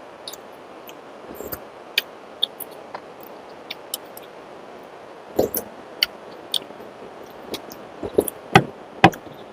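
Eating sounds: a scatter of short, sharp mouth clicks, smacks and small knocks, with a few louder ones in the second half.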